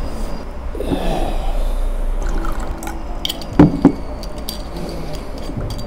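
Liquid poured from a small bottle into a drinking glass, with a few small clicks of glass and one sharp knock a little past halfway.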